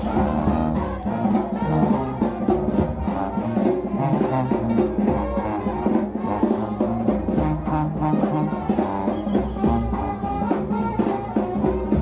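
Brass band music: trumpets and trombone over a bass line and drums, with a steady beat.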